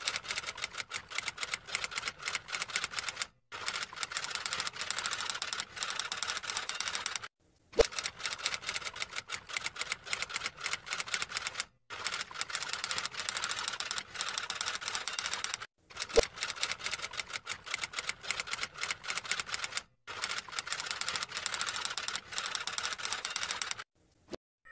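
Typewriter keys clattering in fast runs of about four seconds, broken by brief pauses, with a single sharper, louder strike twice along the way.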